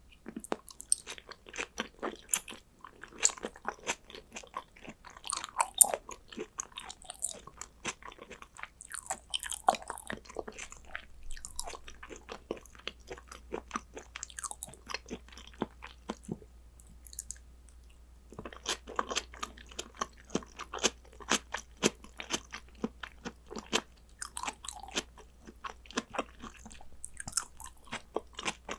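A person chewing and biting soy-sauce-marinated salmon, with many sharp wet mouth clicks and smacks. The chewing stops for a couple of seconds about two-thirds of the way through, then starts again.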